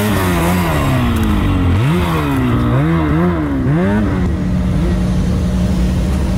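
Turbocharged Lynx mountain snowmobile engine revving up and down over and over as it is ridden through deep powder, the pitch rising and falling every second or so. A little after four seconds in it gives way to a steady low drone, the hum of an airliner cabin.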